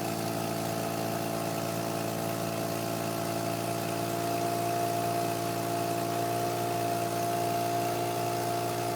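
Freshly rebuilt Mazda RX-7 FC3S 13B turbo rotary engine idling steadily, warming up on its second start, with a belt slipping.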